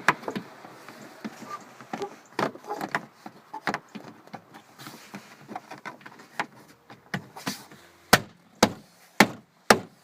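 Plastic interior trim panel of a minivan's rear liftgate being fitted back into place: scattered light clicks and knocks, then near the end a run of four sharp knocks about two a second as the panel is tapped in by hand to seat its clips.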